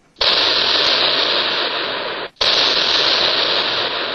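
Loud steady hiss that starts abruptly, cuts out for a moment about two seconds in, then comes back just as abruptly.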